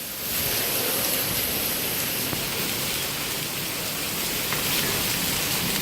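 Heavy rain pouring down in a steady, loud hiss that swells just after the start and then holds.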